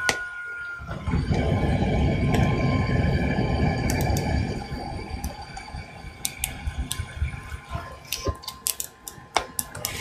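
Handheld butane gas torch burning with a steady rushing roar for about five seconds while lighting kindling in a small wood stove. After that the roar drops away and a run of sharp clicks and crackles follows.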